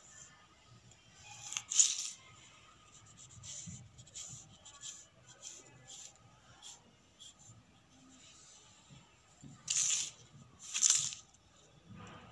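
Folded paper pattern rustling and crinkling as it is handled and smoothed flat by hand, in short scattered crackles, the loudest about two seconds in and twice close together near the end.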